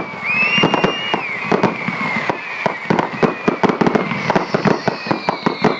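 Fireworks going off in a rapid, dense string of bangs and crackles, with whistling tones near the start and a long falling whistle beginning about four seconds in.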